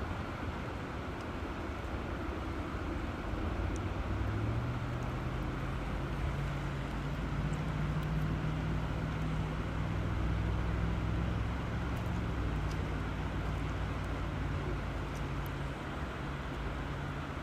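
Steady rush of flowing river water. A low hum comes in about four seconds in, steps up and down in pitch a few times, and eases off near the end.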